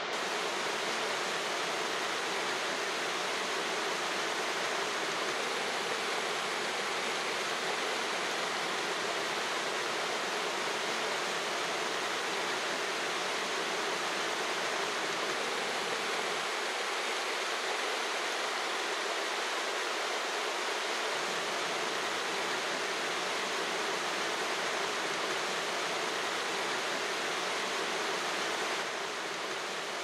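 Waterfall rushing steadily as water cascades down over rock ledges into a pool, with slight shifts in tone partway through and near the end.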